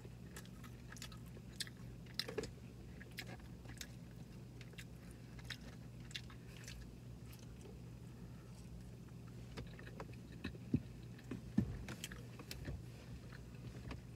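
Close-up mouth sounds of a person biting and chewing battered fried cod: irregular wet smacks and clicks, with a few louder ones about eleven seconds in.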